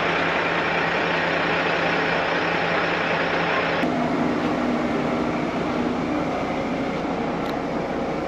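Diesel railcar engine idling while the train stands at the station, heard inside the passenger cabin as a steady low hum and rumble after an abrupt change about four seconds in. Before the change, a similar steady mechanical noise with a lower hum.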